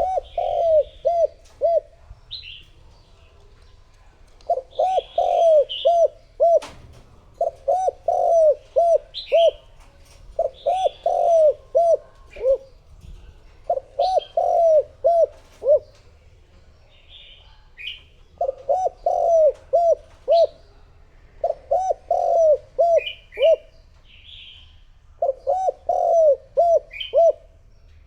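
Spotted dove cooing, a repeated phrase of several low coos that comes back every three to four seconds, played as a decoy call to lure wild doves. Short, higher-pitched bird chirps come in between the phrases, and there is one sharp click about a third of the way in.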